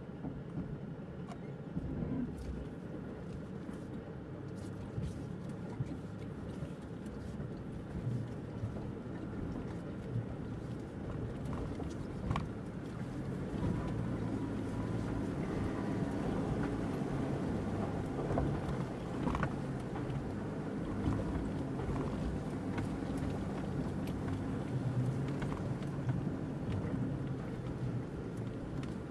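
Land Rover Defender engine running low and steady in a slow crawl over rocks, heard from inside the cab, with scattered knocks and clunks as the vehicle rocks over the stones. It gets somewhat louder about halfway through.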